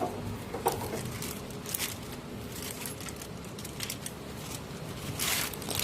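Light rustling and a few soft clicks as the old and new cabin air filters are handled, with a louder rustle near the end.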